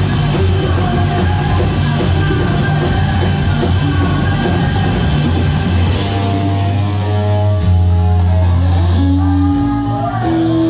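Live rock band playing loud on electric guitars, bass and drums. About six seconds in, the driving beat gives way to long held guitar notes that ring on, with a few bending, sliding tones near the end.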